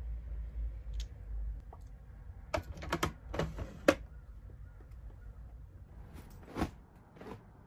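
A low rumble for the first second and a half, then a quick cluster of small sharp plastic clicks and taps about two and a half to four seconds in, and a few more near the end. This is small cosmetic items being handled and set down in a clear plastic organizer on a desk.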